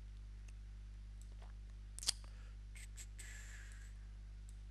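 Computer mouse clicking a few times, with one sharper click about two seconds in and a brief soft hiss near the end, over a steady low electrical hum.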